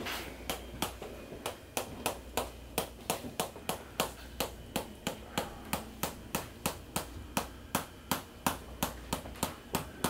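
Chiropractic percussion tapping: a rubber-headed mallet striking a metal cylinder held against the shoulder, a steady run of sharp taps, about three to four a second.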